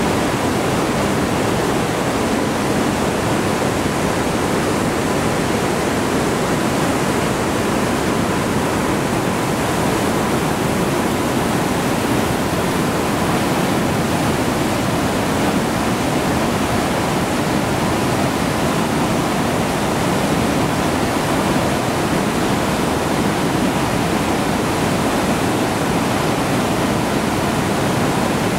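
The Rhine Falls heard up close: a loud, steady rush of water pouring over the falls and churning in the basin below.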